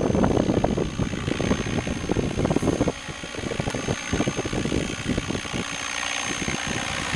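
Radio-controlled model helicopter flying overhead: its rotor and motor noise, with a thin steady high whine. Gusts of wind buffet the microphone for the first three seconds or so, then ease off.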